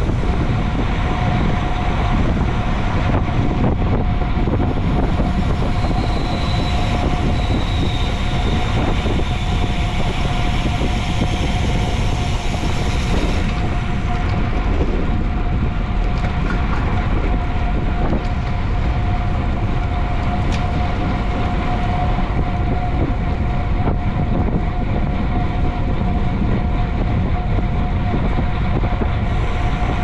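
Bicycle riding at speed: a steady rush of wind over the microphone with tyre and road rumble and a steady hum.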